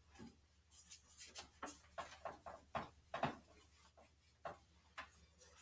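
Whiteboard being wiped clean with an eraser: a quick run of short rubbing strokes, then a few scattered ones, faint.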